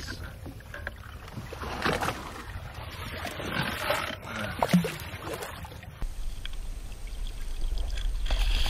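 Water splashing and sloshing against the boat as a hooked tarpon thrashes at the surface beside the hull, with a few sharper splashes. About six seconds in, the sound changes abruptly to a steady low wind rumble on the microphone.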